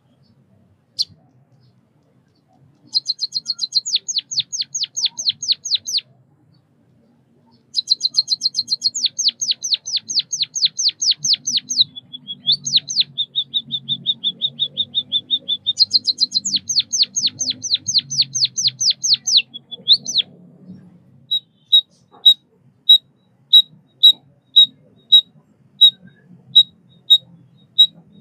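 White-headed munia singing: fast runs of high chirps, a steady rapid trill in the middle, then single high chirps spaced under a second apart near the end.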